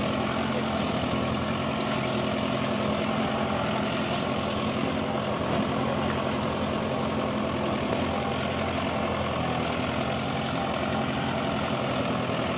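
Kubota farm tractor's diesel engine running steadily at an even speed, with no change in pitch.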